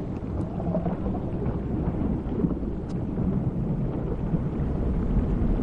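A steady, low underwater rumble, with a few faint clicks.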